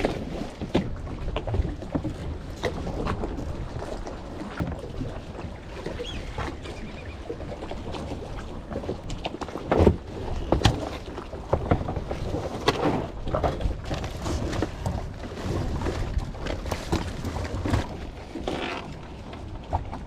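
Wind buffeting the microphone aboard a small wooden boat, with water sloshing and scattered knocks and clatter on the hull, the loudest knocks about halfway through.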